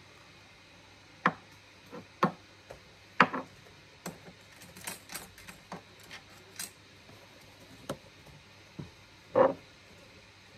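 Scattered light clicks and taps of a gel nail polish bottle and small items being handled on a desk, irregular and sharp, with a duller knock near the end.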